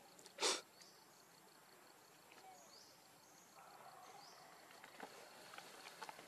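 Outdoor ambience of insects: a steady high trill with short repeated chirps about once a second. A brief loud burst of noise comes about half a second in, and faint scattered clicks follow later.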